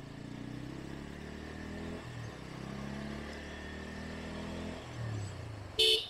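Bajaj Pulsar N160's single-cylinder engine running while riding, its note shifting in pitch about two seconds in and again near five seconds. Near the end comes a brief, sharp, high-pitched sound, louder than the engine.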